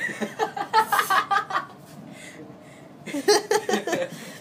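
People laughing in two bursts: one right at the start lasting about a second and a half, and another about three seconds in, each a quick run of pulsed laughs.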